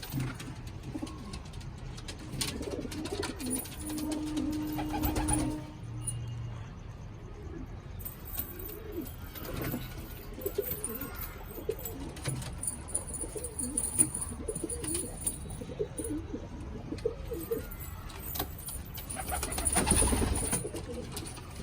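Domestic pigeons cooing: many short, low coos repeating and overlapping, with two louder rushing noises, one about five seconds in and one near the end.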